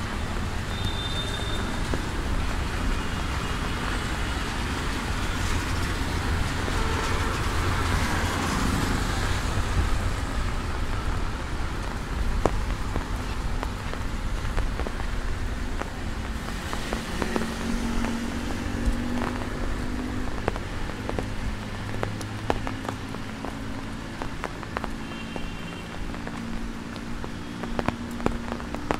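Rain falling on a wet street with traffic: tyres of approaching vehicles hiss on the wet tarmac, swelling over the first ten seconds or so, then a steady engine hum comes in from the middle on. Scattered ticks of drops are heard near the end.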